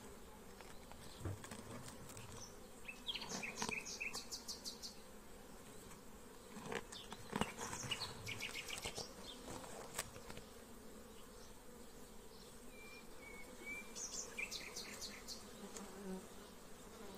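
Honeybees buzzing around an opened hive, a faint steady hum. Short high chirps come in a few times over it, and there is one sharp click about ten seconds in.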